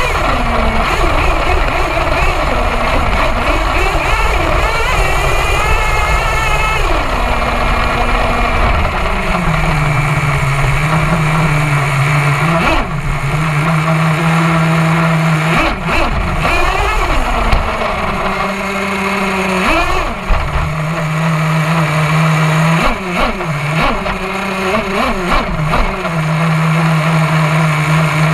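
Nitro glow-plug engine of an HPI Savage XL RC monster truck, heard up close from a camera on the truck. It runs under throttle for the first several seconds, then settles to a steady idle and is blipped up in short revs several times in the second half.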